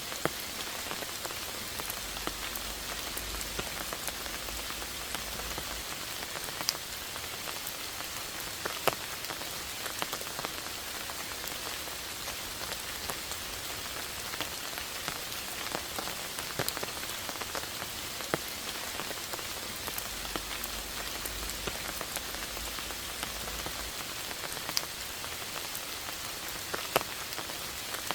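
Steady rain falling, a continuous hiss with scattered louder drops striking close by.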